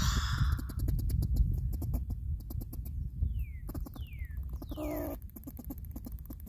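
Gray squirrel rapidly clicking its teeth together, the tooth-chattering of an agitated squirrel warning off a threat. Three short falling whistles sound around the middle.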